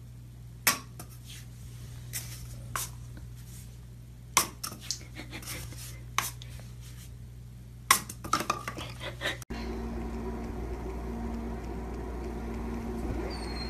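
Scattered light clacks and knocks of a cat batting an empty cardboard toilet-paper tube around a porcelain bathtub, ending in a quick flurry of knocks. It cuts off suddenly and gives way to a steady low room hum.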